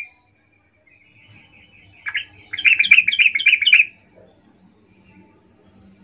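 Yellow-vented bulbul singing one short phrase of quick, bubbly notes about two seconds in, lasting under two seconds.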